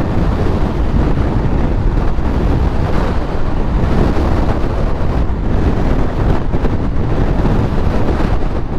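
Heavy storm wind rushing and buffeting a helmet-mounted microphone on a moving motorcycle, a loud, steady, deep rumble with no let-up.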